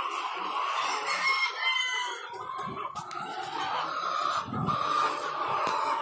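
A house full of caged white laying hens clucking and calling together in a steady din, with a louder drawn-out call rising and falling about a second in.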